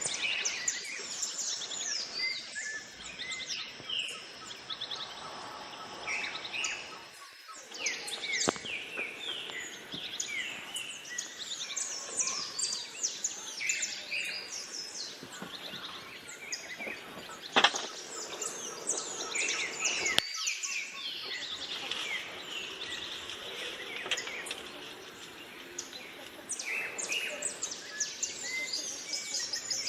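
Several birds singing at once: a dense chorus of quick, high chirps and trills over a steady background hiss. A single sharp click stands out about two thirds of the way through.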